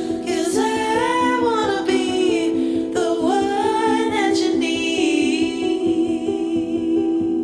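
Background song: a singer holding long, wavering notes with vibrato over sustained instrumental chords; the voice ends near the end and the accompaniment carries on.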